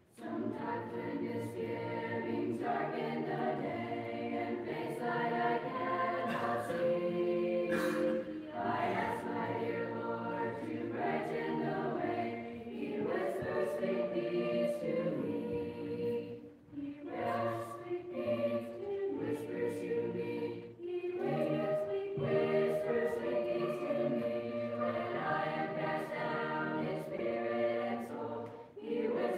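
Mixed choir of young voices singing a cappella, in sustained phrases with brief breaks for breath between them.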